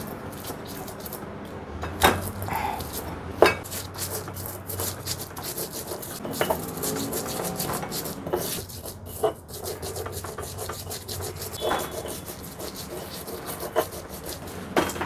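Stone mortar and pestle grinding garlic and coriander seeds into a spice paste: steady gritty scraping and rubbing of stone on stone, with a few sharper knocks of the pestle.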